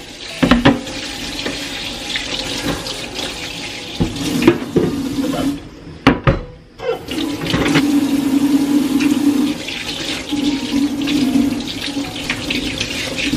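Kitchen tap water running into a sink as a piece of pork is rinsed under the stream. The flow stops briefly about six seconds in, with a couple of knocks, then runs again.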